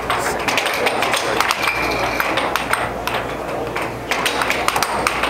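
Air hockey puck and mallets clacking: a rapid, irregular run of sharp plastic hits as the puck strikes the mallets and the table's rails, over a steady low hum.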